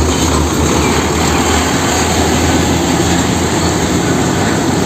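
Heavy container truck running: a steady low rumble under broad, even road noise.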